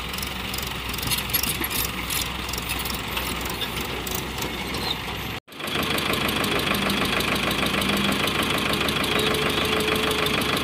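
Diesel engine of a hydraulic crawler excavator running steadily while it digs sand. About five seconds in, the sound cuts out for an instant at an edit, and after the cut the engine is louder, with a fast, even beat.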